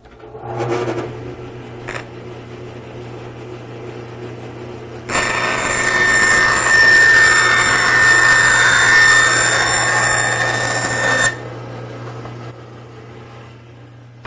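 Powermatic bandsaw running with a steady hum. From about five seconds in, the blade cuts through a sheet of dry erase board for about six seconds, a loud rasping cut with high ringing tones, and then the saw keeps running unloaded.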